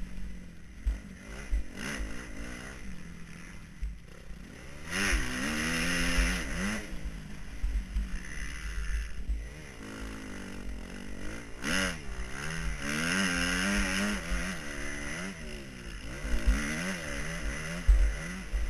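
Motocross bike engine revving hard and backing off as the rider accelerates along a rutted dirt track, the pitch climbing and dropping several times, with low rumbling buffeting on the bike-mounted camera's microphone.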